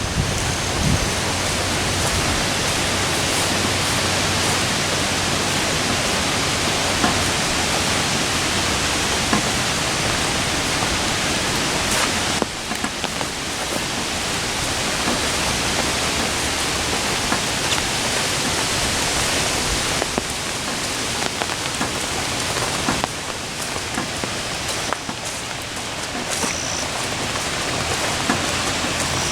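Steady rain falling, a dense, even hiss with a few faint taps.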